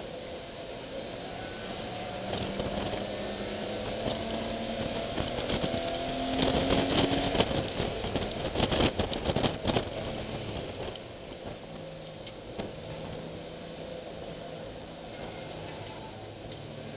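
Race-prepared BMW E30 325is straight-six engine heard from on board under load, its pitch climbing steadily for several seconds. Midway comes a loud stretch of rattling and knocking lasting a few seconds. Then the engine settles into a lower, steadier note.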